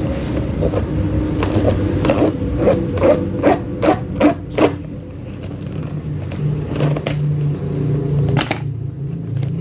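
Cardboard parcel box being torn open: a run of short scraping, ripping strokes, two to three a second, over a steady low hum. One sharp scrape comes near the end.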